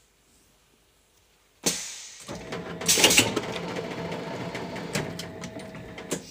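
Plastic-bottle blow-moulding machine cycling: a sudden burst of hiss about a second and a half in, then about four seconds of hissing and mechanical clatter, loudest around three seconds in, as the mould halves open and close. It stops abruptly near the end.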